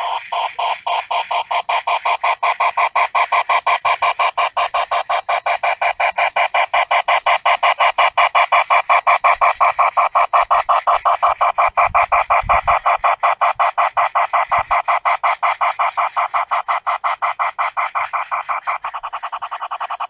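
G scale geared steam locomotive running with a rapid, even pulsing beat, about six beats a second, which softens slightly near the end.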